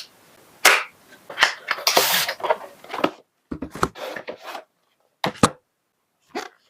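Packaging being handled during an unboxing: a few sharp clicks and knocks, with bursts of rustling cardboard and plastic in the middle.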